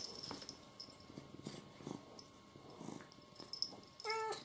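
A cat purring faintly, then one short meow near the end.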